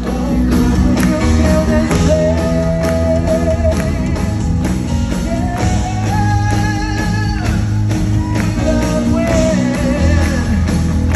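Live church worship band playing an upbeat song, a lead singer holding long notes over bass and a steady drum beat, heard through the sanctuary's sound system.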